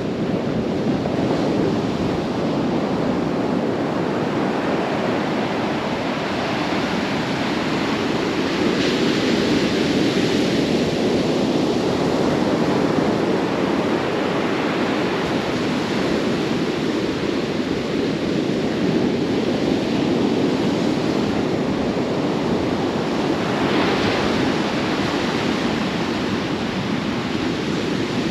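Atlantic Ocean surf washing steadily onto the beach, a continuous rush of breaking waves, with two brighter wave crashes, about a third of the way in and near the end. The sea is not rough.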